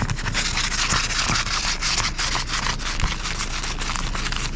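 A hard plastic car-document holder scraping a sheet of ice off a car windshield in rapid, continuous back-and-forth strokes, a dense scratchy rasp.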